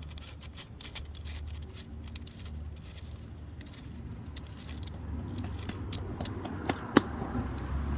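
Small metal hardware being handled: washers and screws clinking, with two sharper clicks near the end, over a steady low hum.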